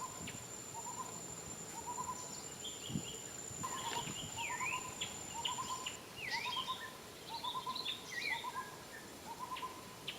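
Bird calls: a short rising hoot-like note repeated steadily about every two-thirds of a second, with higher quick chirps and swooping calls in the middle. A thin steady high insect whine runs underneath and stops about halfway through.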